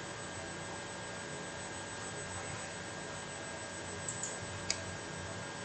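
Steady electrical hum and hiss with thin constant tones, the recording's background noise. A few faint ticks a little past the middle and one sharper click, most likely the mouse clicking the Accept button on screen.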